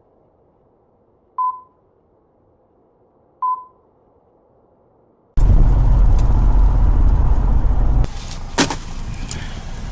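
Two short electronic beeps of one steady pitch, two seconds apart. About halfway through, a loud low rumble starts suddenly and eases a little later, with a sharp knock near the end.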